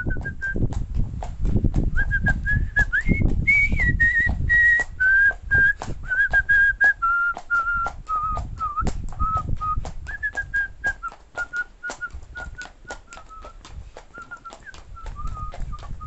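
A man whistling a tune, a single clear whistle that climbs higher a few seconds in and then drifts lower, while a horse's hooves clop on asphalt about four times a second. A low rumble on the microphone is heavy in the first few seconds.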